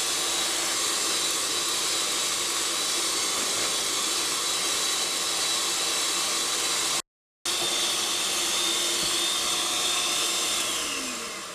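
Electric mixer running steadily, its motor whining as the beaters whip hot sugar syrup and gelatin into a zefir foam. The sound drops out for a moment about seven seconds in, and near the end the mixer is switched off and its whine slides down and fades.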